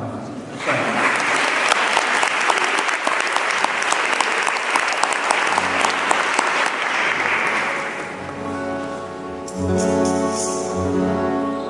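Audience clapping after the band's greeting, dying away after about eight seconds, as an instrument starts playing a few held notes.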